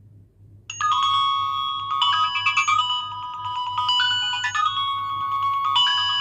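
Nokia 9300 Communicator's loudspeaker playing one of its built-in polyphonic ringtones: an electronic melody of quick notes, often several sounding together, that starts suddenly just under a second in.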